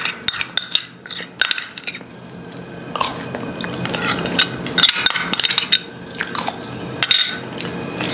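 A spoon clinking and scraping in a small clear bowl as food is spooned up. Light separate clicks come in the first couple of seconds, then a busier run of scraping and clinks from about three seconds in.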